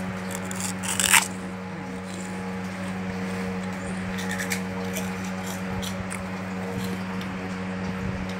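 Hands squishing wet mud and water in a steel plate, with a loud wet scrape against the metal about a second in and a softer one around four and a half seconds. A steady low hum runs underneath.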